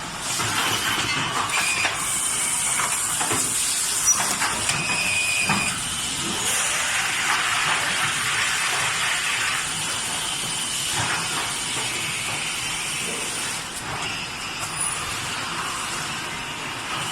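Automatic carton side-labeling machine running: a steady hissing mechanical noise with scattered clicks and a couple of brief high-pitched tones.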